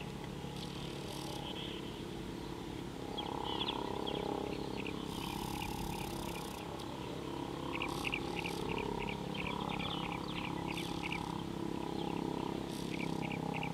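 Hippos grunting with deep, drawn-out calls that swell about three seconds in. Over them come runs of short, sharp metallic tink calls of blacksmith lapwings.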